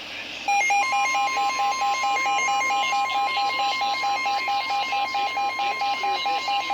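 Emergency alert tones announcing a weather warning: NOAA Weather Radio's steady single-pitch warning alarm tone, layered with an electronic alarm beeping rapidly at about four beeps a second. Both start about half a second in and sound together from then on.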